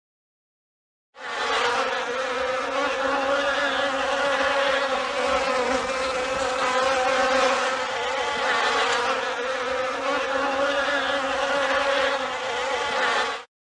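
Bee buzzing: a steady, even drone that starts about a second in and stops abruptly just before the end.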